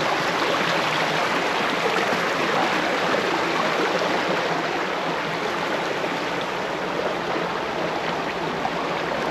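River water rushing steadily, an even continuous wash.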